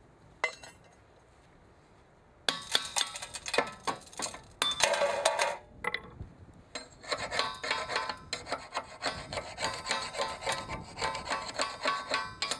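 Torch-cut steel rail ends being scraped clean of cutting slag with a hand tool: repeated rasping strokes of metal on metal, starting about two and a half seconds in after a short click and a near-quiet start.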